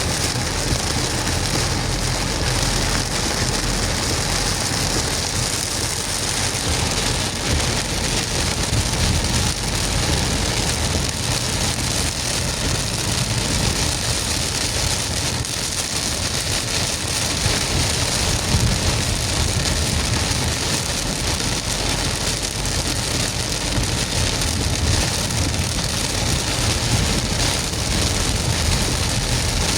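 Heavy rain falling steadily, with the low rumble of a vehicle driving through it.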